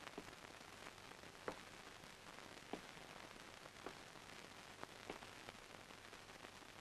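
Near silence: the steady hiss of an old film soundtrack, with a few faint clicks, several about a second and a quarter apart.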